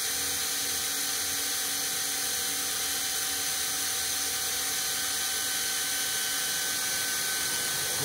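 Cordless drill running steadily with a diamond-tip bit grinding a hole through a bone china teacup: a steady whine over a grinding hiss, with the bit nearly through the china.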